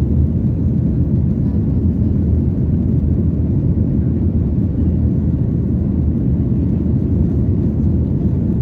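Boeing 737-800 cabin noise in flight during the climb after takeoff: a steady low rumble of its CFM56-7B engines and airflow, heard from inside the cabin.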